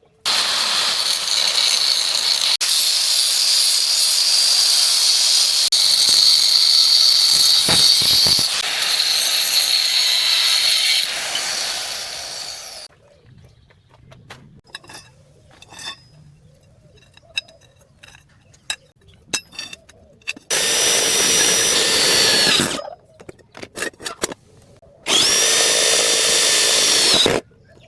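A handheld power tool working metal: one long noisy run of about twelve seconds, then light clicks and taps, then two shorter runs of about two seconds each with a steady high whine.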